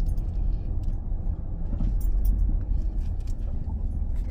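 Minivan engine running with a steady low rumble, a few faint light clicks over it.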